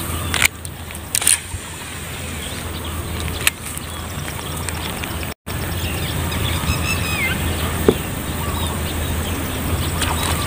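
Steady outdoor background noise with a few sharp clicks and a brief bird chirp about seven seconds in. The sound cuts out completely for a moment near the middle.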